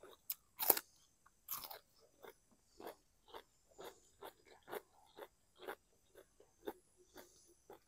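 Close-miked crunching and chewing of crisp raw vegetables: two louder crunching bites in the first two seconds, then steady crunchy chewing at about two chews a second.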